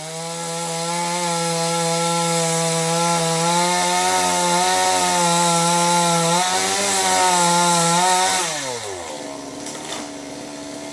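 Two-stroke chainsaw running at high revs, cutting tamarind wood, with a steady engine note. About eight and a half seconds in, the revs fall away and the sound drops to a quieter level.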